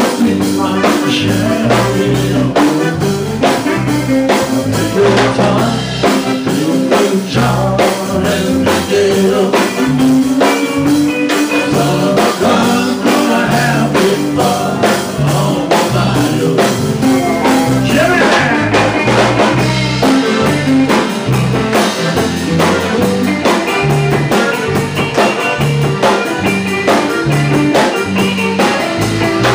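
Live band playing: a man singing lead over a drum kit and guitar, with a steady drum beat.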